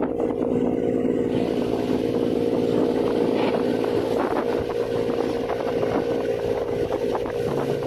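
Fishing boat's engine running steadily: an even hum with a rush of wind and sea noise over it.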